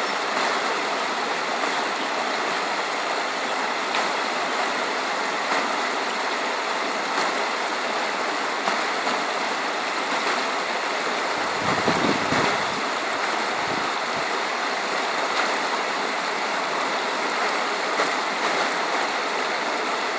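River water rushing steadily as it spills over a drop into churning white water. A low rumble joins it for a couple of seconds about halfway through.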